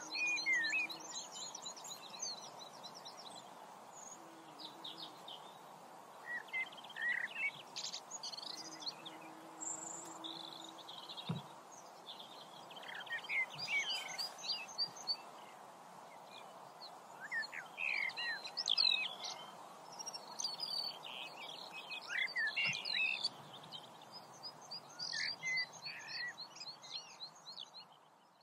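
Several birds singing and chirping, short trills and calls coming one after another over a steady background hiss, dying away at the end.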